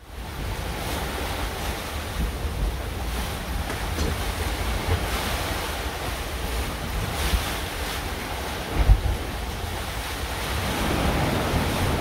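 Wind buffeting the microphone and rough seas rushing and breaking around a sailing catamaran under way, a steady heavy rumble with one loud thump nearly nine seconds in.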